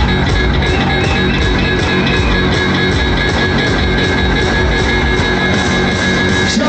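Loud, fast dance music with a steady driving beat, from a DJ set played live through a big stage sound system.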